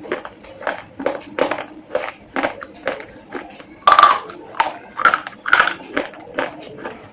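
A person biting and chewing slate pencils: a run of crisp crunches, about two a second, with a louder crunch about four seconds in.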